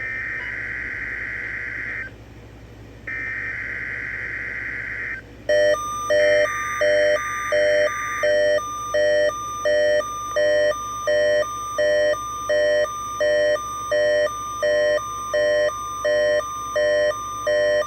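NOAA Weather Radio weekly test signals. SAME header data bursts play twice with a pause between, then a third time. From about five seconds in, the receiver's alert alarm sets off loud, steady pulsing beeps, with the steady weather radio warning tone joining underneath a few seconds later.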